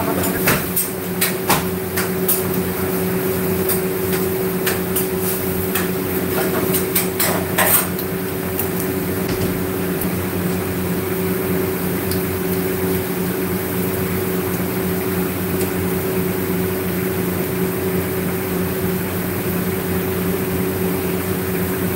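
A steady machine hum throughout, with a run of sharp clicks and knocks in roughly the first eight seconds as a raw fish is handled and cleaned on a stainless steel counter.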